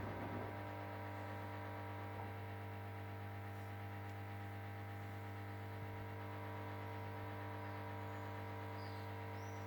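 Ariston Margherita washing machine humming steadily during its main wash, with a strong low mains-type hum and a few fainter steady tones above it. A louder noisy sound from the machine cuts off at the very start.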